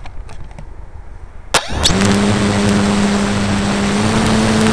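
Electric motor and propeller of an RC flying wing spinning up quickly after a sharp click a bit under two seconds in, then running at a steady whine with loud rushing noise, heard from the onboard camera. The pitch steps slightly higher near the end as the throttle goes up. Before the spin-up, knocks and rubbing of hands handling the airframe.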